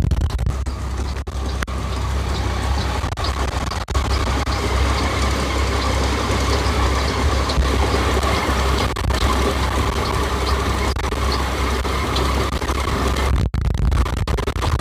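Engine of a 1545-S rice combine harvester running steadily under load, with a steady mechanical whine over the low rumble, typical of the machine unloading paddy. The whine eases near the end.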